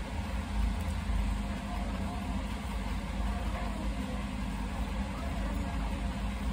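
Steady low rumbling hum of background noise, even throughout, with no distinct events.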